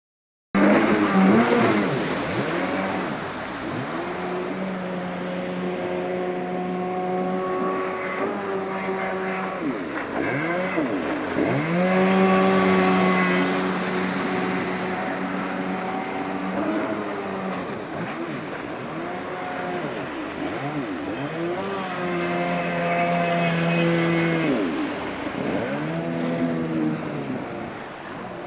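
Jet ski engine revving up and down again and again as it carves turns and passes back and forth, its whine sweeping in pitch with each pass, over the rush of spray.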